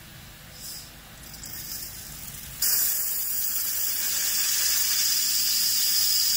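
Compressed air hissing out of an air compressor tank's drain valve as it is opened, spitting out the condensed water that has collected in the tank. A few short spurts at first, then about two and a half seconds in the valve opens fully into a loud, steady hiss.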